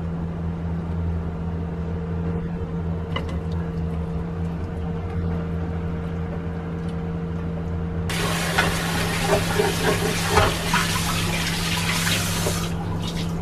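Kitchen tap water running and splashing into a nonstick pan at the sink for about four and a half seconds, starting about eight seconds in, as the pan is rinsed before the leftovers dry on. Before it there is only a steady low hum and a few light clicks.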